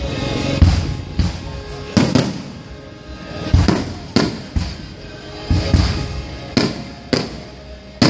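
Aerial firework shells bursting, about ten sharp bangs roughly a second apart. Music plays steadily underneath.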